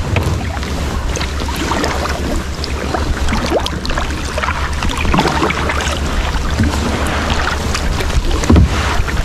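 Kayak paddles dipping and pulling through calm seawater, with splashing and water dripping off the blades, over wind rumbling on the microphone. A heavier thump near the end.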